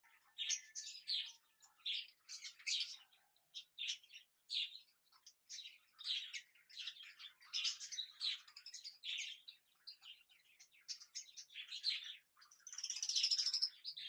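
Budgerigar chicks chirping: a fast, uneven string of short, high-pitched calls, with one longer, louder call near the end.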